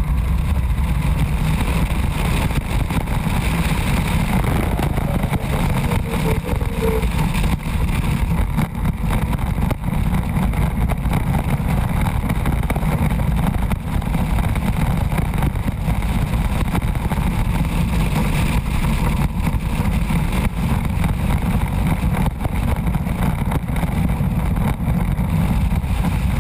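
Steady loud rumbling roar of the Formula Rossa roller coaster at speed.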